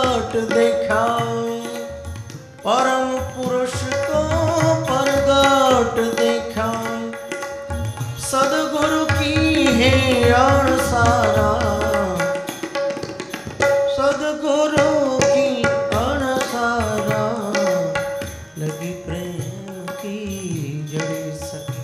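A man singing a devotional bhajan in long, drawn-out phrases over a harmonium's steady drone, with tabla accompaniment.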